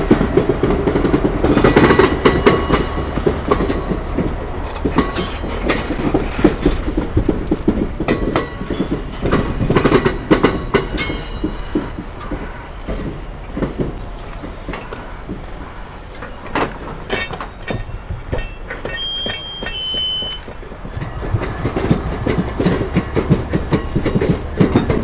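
Bogie hopper wagons rolling slowly past, their wheels knocking and clicking over rail joints with a steady low rumble underneath. A brief high squeal sounds about three-quarters of the way through.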